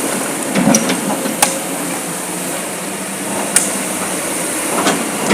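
Kobelco hydraulic excavator running steadily, with a few sharp knocks as it works.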